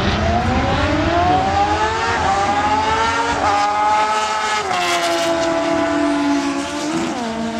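Sport motorcycle engine accelerating hard on a drag strip, its pitch climbing over the first few seconds, then holding and dropping in steps.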